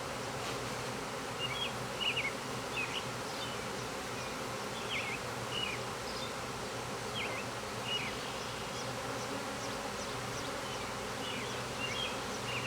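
A swarm of honeybees buzzing in a steady, dense hum, with short high chirps over it about once a second.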